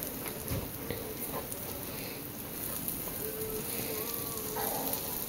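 Butter melting and sizzling faintly on a hot griddle as it coats the surface, a steady low hiss.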